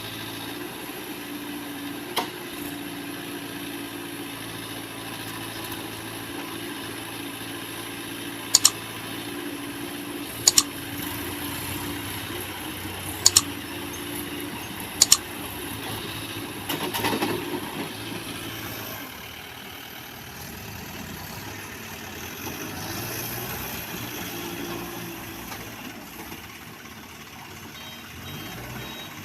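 Case 851 EX backhoe loader's diesel engine running steadily, its note easing and dropping quieter about two-thirds of the way through. A sharp knock comes early, then four louder, sharp double clicks through the middle, and a short rushing noise follows them.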